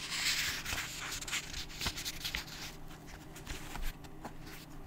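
Paper rustling about a second long, as a book page is turned, followed by a few soft clicks of handling.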